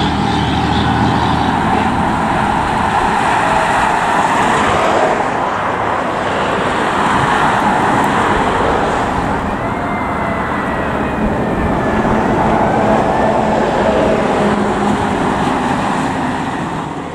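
Steady road traffic passing close by, tyres and engines, with a fire truck's siren now faint and distant; a few rising wails come through about ten and thirteen seconds in.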